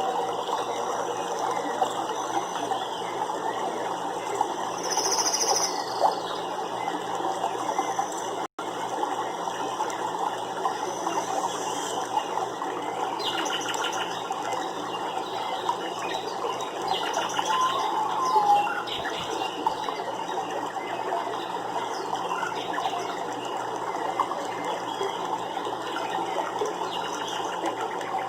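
Nature ambience: a steady, dense chorus of rapid ticking and crackling, with a few short bird chirps over it, one about five seconds in and more around the middle.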